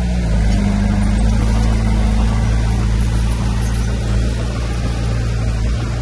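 Diesel engine of heavy earthmoving equipment running steadily, a deep even hum with a slight rise in pitch about half a second in.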